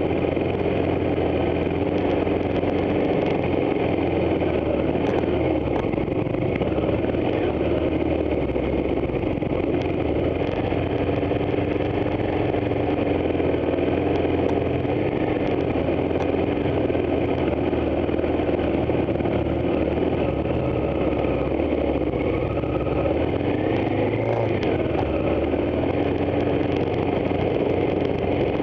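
Onboard sound of an adventure motorcycle's engine running steadily at low trail speed, its pitch rising and falling a little as the throttle is worked.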